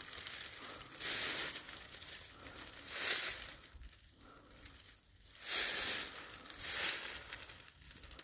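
Footsteps crunching through dry fallen leaves, about four separate crunches spaced a second or two apart.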